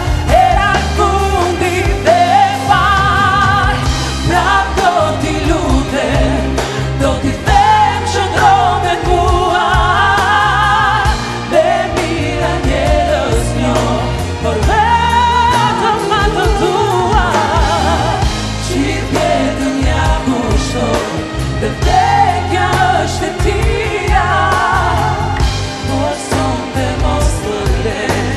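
Live song sung in Albanian by two women's voices in duet, backed by a string section of violins and a band.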